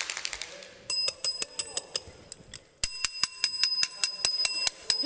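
A chrome desk service bell dinged rapidly over and over, about five rings a second, with a short break partway through; a brief clatter of clicks comes first.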